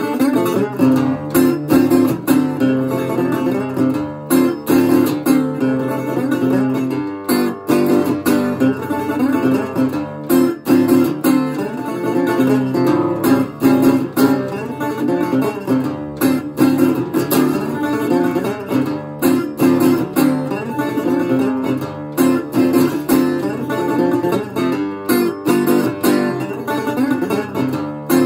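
Dobro Hound Dog M-14 metal-body resonator guitar played with fretted, picked notes: a busy blues instrumental of quick single-note runs and riffs with many short picked attacks.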